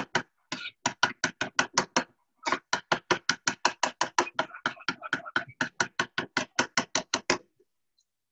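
Yogurt with garlic and salt being beaten in a bowl: a utensil knocks rapidly against the bowl, about five strokes a second. The strokes pause briefly about two seconds in and stop about seven seconds in.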